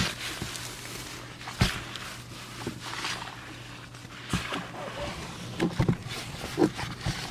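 Shredded paper in a worm bin rustling and crackling as a rubber-gloved hand digs through it, with a few sharper knocks about one and a half seconds in and near six seconds. A faint steady low hum runs underneath.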